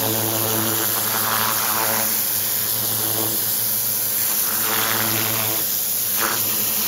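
Greenworks cordless pressure washer running: a steady hum from its electric pump motor under the hiss of the water jet spraying a landscape edging stone.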